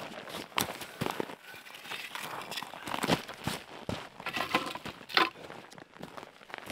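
Irregular rustling and crinkling of handled material, with scattered crackly clicks and a few louder swishes about three and five seconds in.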